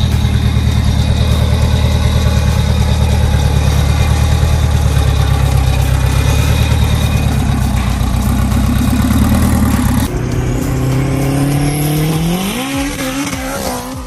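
Turbocharged Honda K24 2.4-litre four-cylinder idling loud and steady. About ten seconds in the sound changes, and near the end the engine pulls up through the revs, its pitch rising steadily as the car accelerates.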